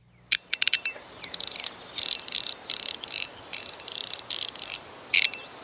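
Titanium-alloy tuning-fork fidget slider (Restless Studios Xia Mu x2) being slid back and forth by hand. First comes a quick run of sharp clicks, then about a dozen short, crisp scraping strokes from the sliding plates, over a faint steady high ring.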